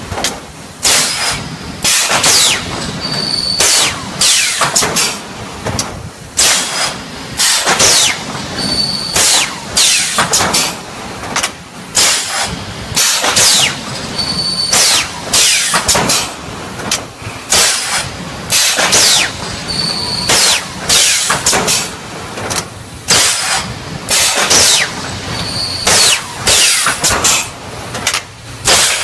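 3D wire mesh panel welding machine running: a rapid, uneven series of loud clanks and air hisses from its pneumatic cylinders and welding heads. A short high tone sounds about every five to six seconds.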